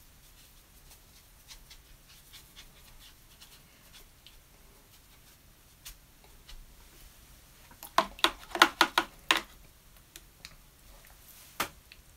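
Faint brush strokes on watercolour paper, then about eight seconds in a quick run of sharp clinks as a paintbrush taps against ceramic while paint is mixed, with one more clink near the end.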